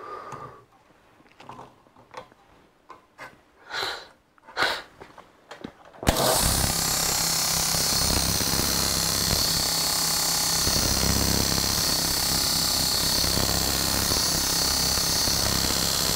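A few light metallic clicks as a twist drill is set in a sharpening jig, then about six seconds in a belt grinder starts and runs steadily, its abrasive belt grinding the drill's second cutting edge with a steady hiss over a low motor hum.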